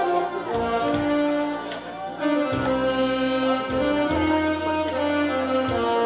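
Two alto saxophones playing a melody together over a recorded backing track, with a bass line and a cymbal ticking about twice a second.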